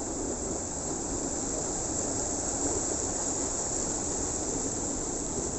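Steady high-pitched drone of insects in the surrounding vegetation over a low, even rumble.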